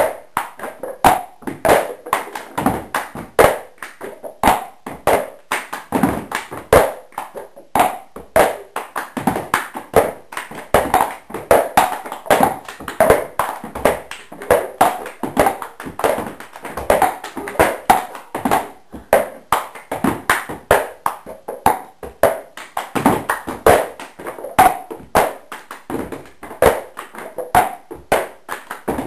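Several red plastic cups being tapped, knocked down and slid on a wooden floor by hand in a repeating rhythm, a cup-rhythm game played by a few people together. It is a steady stream of sharp knocks, a few each second.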